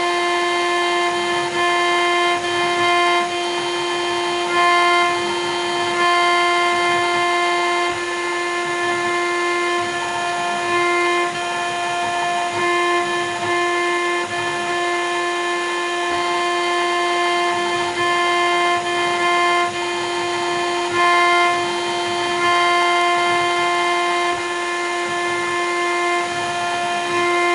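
1.5 kW CNC router spindle running at speed with a steady high-pitched whine while its bit engraves an acrylic cylinder. The whine holds one pitch and grows louder for a second or two at a time as the cut loads.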